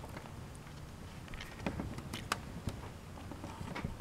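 Light clicks and handling noise as a PCI FireWire card is pressed into a motherboard slot inside a desktop computer case, with a few sharp clicks from about the middle onward over a low rumble.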